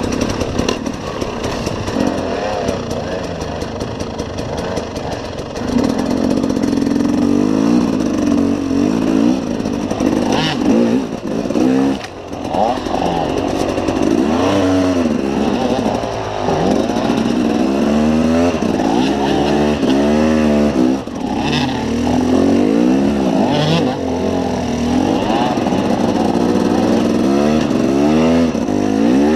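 KTM enduro motorcycle engine revving up and down again and again under load as the bike works up a steep rocky climb, with a few brief knocks.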